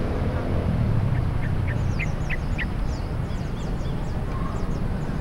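Outdoor dusk ambience: a steady low rumble under birds chirping, with a quick run of four short, sharp chirps about one and a half to three seconds in and fainter high chirps throughout.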